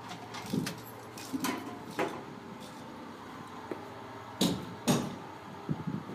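Scattered knocks and thuds on the wooden frame and floor of a house under construction, over a low steady hum that fades out about four and a half seconds in. The loudest are two knocks half a second apart near the end.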